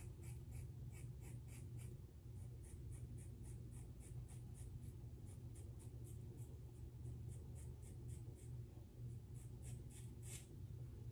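Scissors snipping again and again through a thick ponytail of natural hair: faint, crisp cuts at about three to four a second, with a short pause near the end before a few more snips.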